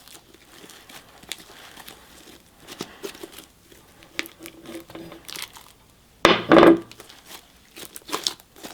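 Sticky fluffy slime (glue, shaving cream and borax) being pulled and scraped off the sides of a bowl: a run of soft crackling, squishing and small clicks, with one louder, longer squelch about six seconds in.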